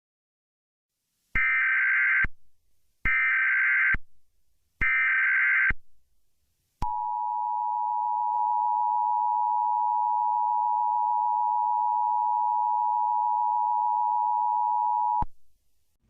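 Emergency Alert System alert: three short bursts of digital SAME header data, each just under a second, then the steady two-tone EAS attention signal held for about eight seconds, opening a Required Monthly Test.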